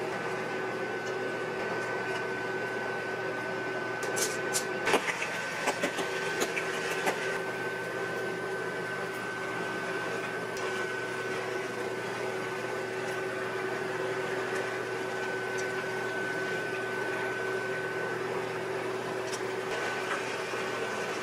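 Noodles stir-frying in a wok, a steady sizzle with a constant hum and a high whine under it. Chopsticks click and knock against the pan several times about four to seven seconds in.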